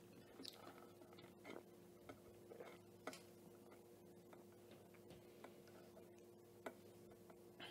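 Near silence: a faint steady hum with a few soft clicks scattered through it.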